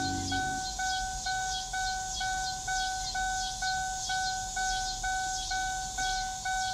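A car's electronic warning chime, from the 2010 Chevy Traverse's chime box, giving a single-pitched bong that repeats steadily about twice a second.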